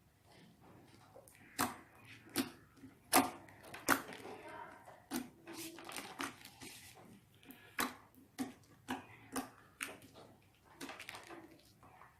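Slime being squeezed and poked by hand, giving irregular sticky clicks and pops, several a second in places.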